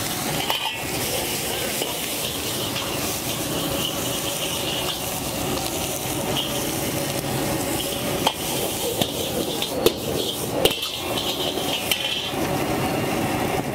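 Vegetables sizzling as they stir-fry in a hot wok, a long-handled ladle stirring and scraping them round. A few sharp clinks of the ladle against the wok stand out about eight to eleven seconds in.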